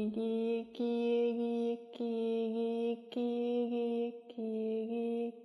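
A voice chanting light-language syllables on one steady pitch, as five held notes about a second long with short breaks between them.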